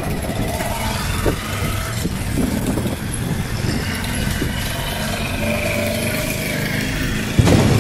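A car approaching and passing, its engine and tyres giving a steady rumble. There is a loud thump near the end.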